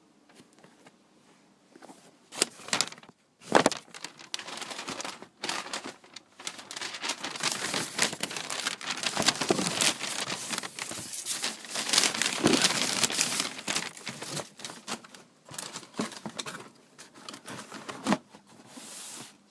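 Packaging paper crinkling and rustling as a shoebox's contents are handled, with scattered clicks and knocks. The crinkling is busiest in the middle and thins out toward the end.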